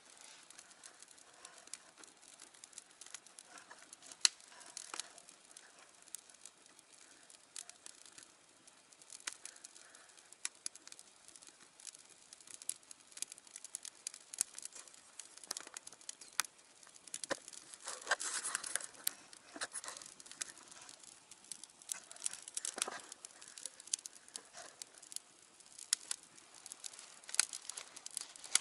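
Wood fire burning in a Tonbi fire grill, crackling and popping at irregular intervals, with a sharp pop about 4 seconds in and busier, louder crackling around two-thirds of the way through.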